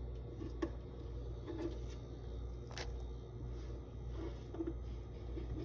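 Chopped onion being dropped and handled in a bowl of raw tripe: faint soft rustles with a couple of light clicks, over a steady low hum.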